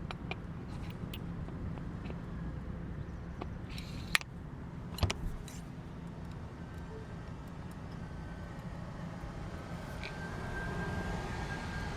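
Steady low outdoor background rumble, with a few sharp clicks and knocks, the loudest about four and five seconds in, as small parts of a cooler's wheel and axle are handled.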